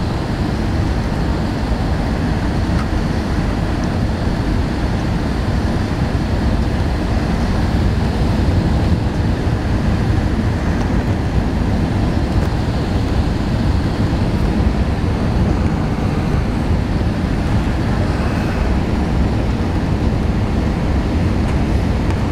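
Steady roar inside the cabin of an Airbus A321 on approach to land: engine and airflow noise heard from a window seat over the wing, even and unbroken.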